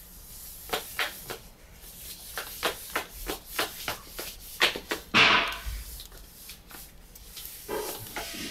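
Handling noise from a partly disassembled Sony DSC-QX10 lens camera: irregular small clicks and taps of its plastic and metal parts, several a second, then a louder brief rush of rustling noise about five seconds in.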